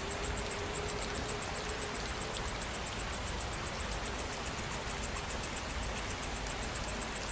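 Steady rain falling, with an insect chirping in a rapid, even high-pitched pulse of about nine chirps a second.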